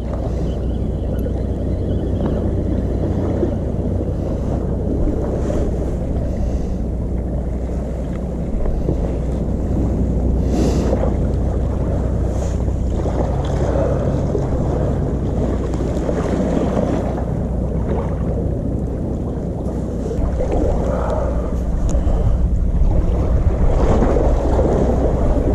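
Steady wind rumbling on the microphone together with the sea washing around concrete breakwater blocks, getting louder in the last few seconds.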